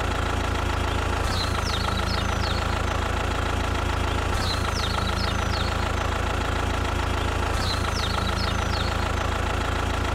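Vehicle engine idling steadily with a low hum, joined by groups of short high chirps; the same few seconds repeat about every three seconds, like a looped sound effect.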